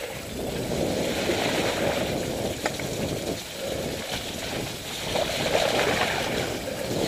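Mountain bike tyres rolling and splashing through standing water and mud on a flooded track, a steady wet rushing noise.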